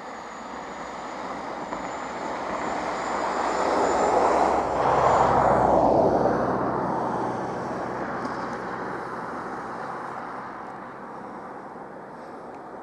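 A vehicle passing by: a rushing noise that swells to its loudest about five seconds in and then slowly fades away.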